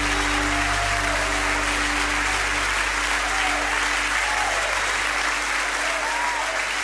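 Congregation applauding after a worship song, while the band's held final chord rings on and fades away in the first couple of seconds.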